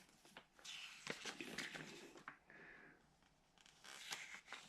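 Faint handling noises: scattered light clicks and soft rustling of small parts and packaging being picked up and moved, with a brief soft scrape about halfway through.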